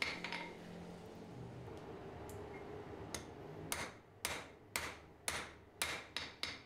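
Hand hammer striking hot 12 mm square steel bar on an anvil, drawing it down to 10 mm: about nine sharp, ringing blows starting about three seconds in, roughly two a second and quickening toward the end.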